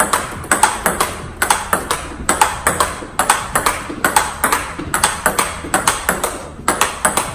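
Table tennis backhand block rally: the plastic ball clicking off the rubber paddles and bouncing on the table in a quick, even rhythm of several knocks a second.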